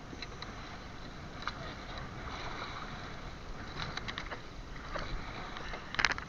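Small boat at sea: a steady rush of wind and water, with scattered knocks and clicks, the loudest about six seconds in.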